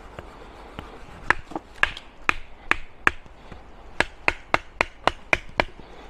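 A Fox Aruru folding knife chopping into a small holm oak branch: sharp wooden knocks, five spaced about half a second apart, then after a short pause a faster run of about four blows a second.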